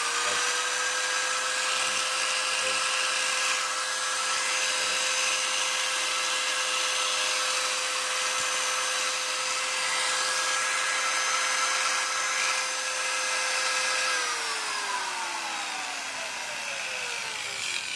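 Makita corded electric drill run with no load as a test, holding a steady high whine at full speed. About fourteen seconds in it is switched off and spins down, the whine falling in pitch over several seconds.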